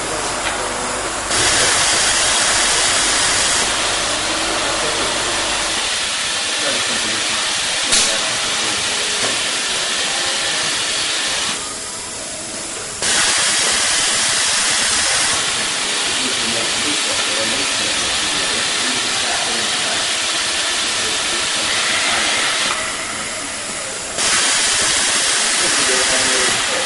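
Steady hiss of compressed air from a pneumatic robotic test machine. It grows louder in bursts about every eleven seconds, each just after a short dip, and there is one sharp click about eight seconds in.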